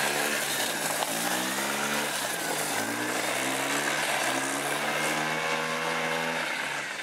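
Small four-stroke engine of a powered drift trike revving up and dropping back about three times as the rider works the throttle through a drift, then holding a steadier pitch before fading near the end.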